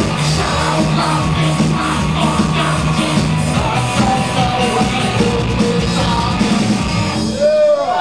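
Live rock band playing loud with distorted electric guitar, bass guitar and drums. About seven seconds in the song stops abruptly, and the audience starts whooping and cheering.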